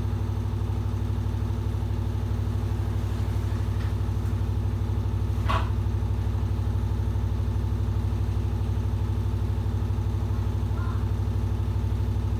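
Washing machine running with a steady low motor hum and a fast, even ripple in its loudness, with one brief knock about five and a half seconds in.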